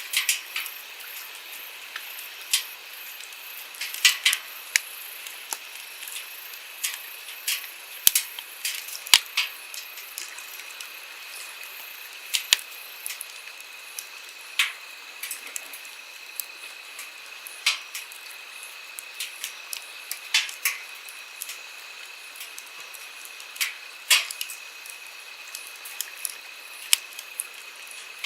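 Wood campfire crackling, with sharp irregular pops and snaps, over the steady rush of a flowing stream.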